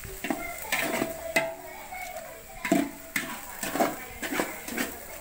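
A large aluminium cooking pot being stirred: irregular knocks and scrapes against its sides as the biryani masala is mixed.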